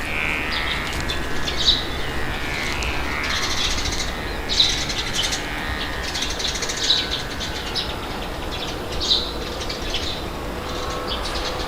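Birds chirping repeatedly, short bright calls every second or two, over a steady rush of wind.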